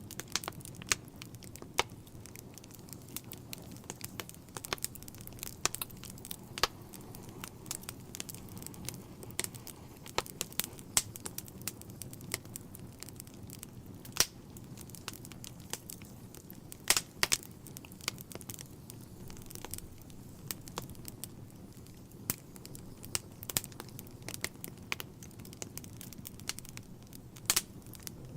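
Wood fire crackling in a fireplace: irregular sharp pops and snaps, a few of them louder, over a low steady rush of the burning logs.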